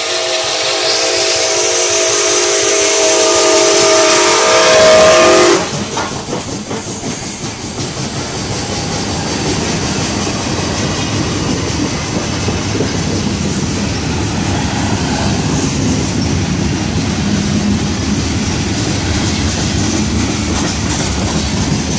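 Nickel Plate Road 765, a 2-8-4 Berkshire steam locomotive, sounds its steam whistle in one long blast that cuts off about five and a half seconds in. After that its tender and a long train of freight cars roll past with a steady rumble and the clickety-clack of wheels on the rails.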